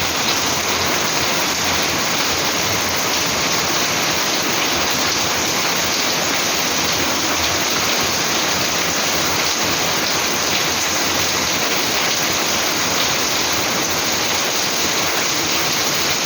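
Heavy downpour: a steady, dense rush of rain and running water.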